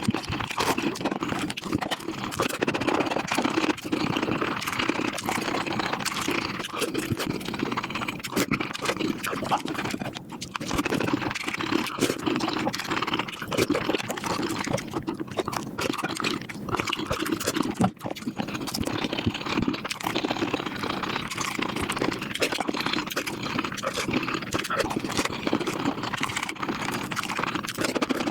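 Close-miked eating sounds played back at about five times speed: a dense, rapid chatter of chewing, smacking and crunching clicks.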